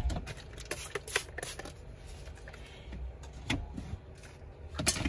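Scattered light clicks, knocks and rustles as a plastic spray bottle and other small things are handled, a few sharp taps spread over several seconds.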